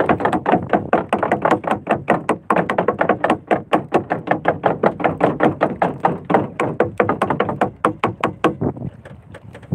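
Small boat engine running slowly, with a rapid, even popping of about seven beats a second. The popping stops near the end, leaving wind and water noise.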